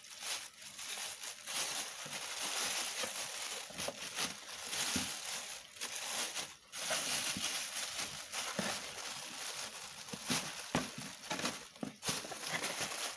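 Clear plastic packaging bags crinkling and rustling as they are handled and unwrapped, in uneven crackly bursts.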